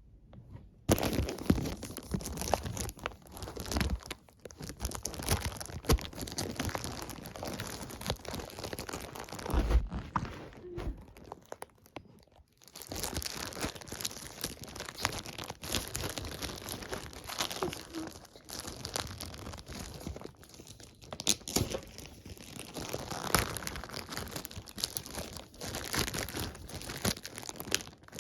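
Magazine packaging being torn open and crumpled by hand: irregular rustling and crinkling with sharp crackles, pausing briefly about halfway through.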